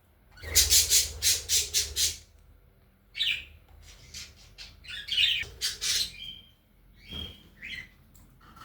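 Budgerigars squawking in harsh calls: a quick run of about seven in the first two seconds, then scattered squawks through the rest.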